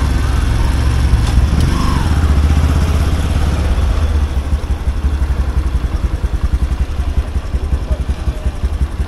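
The rider's own motorcycle engine running at low speed, a steady low rumble. About four seconds in it settles into an even pulsing beat, several beats a second.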